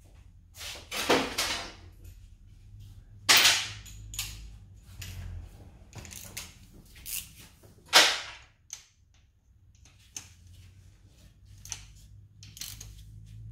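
Metal hand tools clinking and clacking against each other and the engine in irregular knocks, with three louder sharp clacks: about a second in, a little past three seconds, and near eight seconds.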